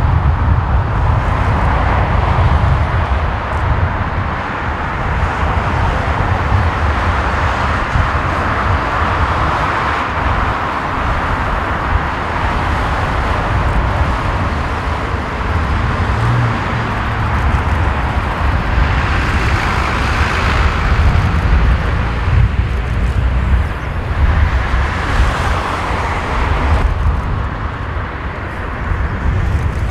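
Airbus A380's four Rolls-Royce Trent 900 turbofans at take-off thrust: a loud, steady jet roar with a deep rumble beneath, its hiss swelling briefly twice in the second half as the aircraft lifts off and climbs away.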